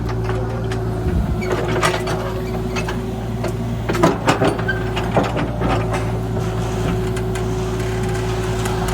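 Heavy work machinery with its engine running steadily, with scattered metallic clanks and knocks, a cluster of them about four to five seconds in.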